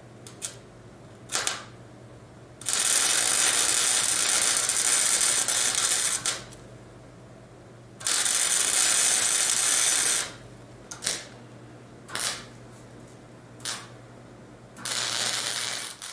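Wire-feed welder arc crackling on steel, in bursts: a couple of brief tacks, then longer beads of two to three and a half seconds with more short tacks between. A steady low hum runs underneath between welds.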